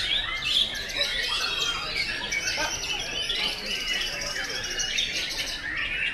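Several white-rumped shamas singing at once, a dense overlapping mix of whistles, chirps and rapid trills with no pause.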